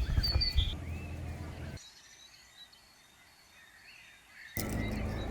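Birds chirping over outdoor background noise. The background noise drops away for about three seconds in the middle, leaving only faint chirps, then returns near the end with a few sharp clicks.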